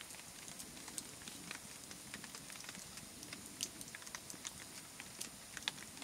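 Campfire burned down to glowing embers and charred sticks, crackling faintly: irregular sharp pops and ticks over a soft hiss.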